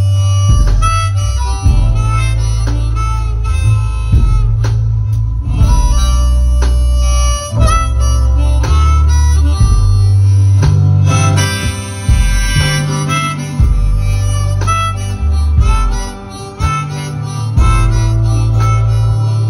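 Live band instrumental break: a harmonica plays a solo line over strummed acoustic guitar, upright bass and drums.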